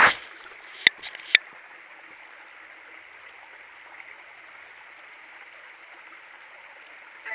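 Small forest creek trickling and splashing over rocks as a steady rush of water. Two sharp clicks sound about a second in.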